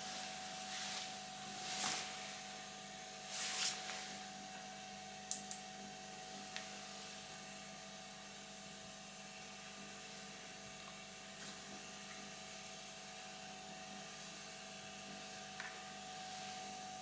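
Faint, steady electrical whine and hum from powered bench equipment. There are a few soft handling rustles in the first four seconds and two sharp clicks about five seconds in.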